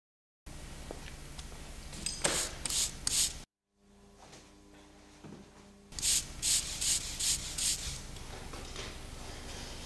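Rubbing strokes of hand woodblock-printing work: three quick strokes about two seconds in, then a faster run of about five strokes about six seconds in. Between them, after a brief drop-out, a quieter stretch with a steady low hum.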